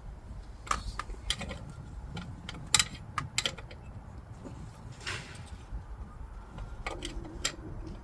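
Scattered metallic clicks and clinks of a socket wrench being fitted onto a brake booster mounting bolt, with a short scrape about five seconds in.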